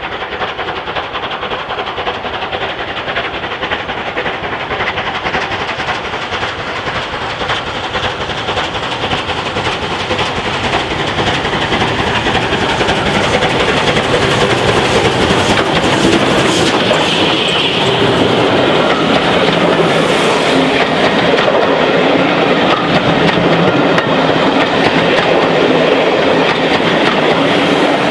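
Unrebuilt Bulleid light Pacific steam locomotive 34070 'Manston' working a passenger train, growing louder as it approaches. Over the second half the locomotive and then its coaches pass close by, their wheels running over the rail joints.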